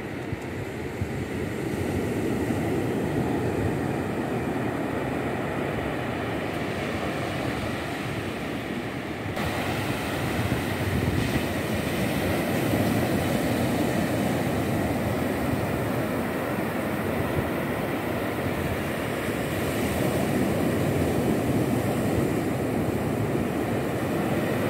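Ocean surf breaking and washing up a sandy beach: a steady rushing that swells and eases, turning hissier about nine seconds in.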